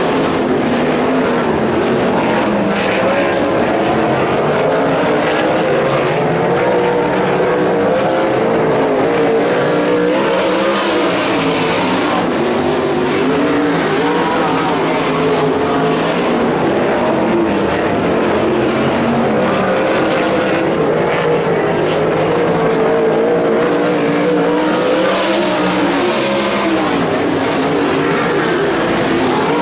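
Winged sprint cars' V8 engines running hard around a dirt oval, their pitch rising and falling as they go through the turns and down the straights.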